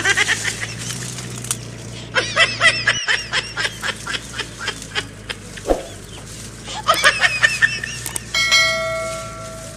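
Chickens clucking in quick runs of short calls, then one long steady call near the end.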